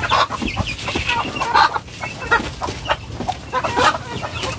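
Farm poultry crowding over scattered feed, giving a steady stream of short clucking calls.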